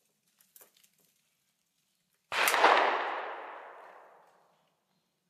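A single gunshot with an echo that dies away over about two seconds, a little over two seconds in. A few faint clicks of the flintlock rifle being handled come before it.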